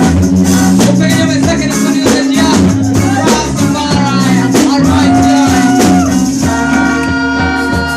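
Reggae music played loud over a sound system: a heavy bass line under a steady rhythm of evenly spaced percussion strokes.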